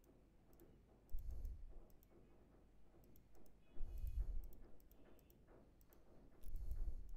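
Computer mouse clicks: three short bursts about two and a half seconds apart, each a sharp click with a low thump, and a few fainter clicks between them.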